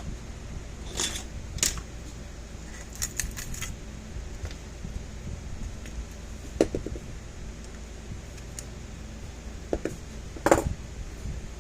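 Small metal tools and parts clicking and clinking on a workbench during circuit-board desoldering work, in scattered single knocks and short clatters, the loudest near the end, over a steady low hum.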